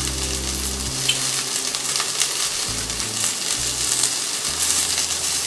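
Shell-on shrimp frying in oil in a stainless steel pan: a steady sizzle with small crackles.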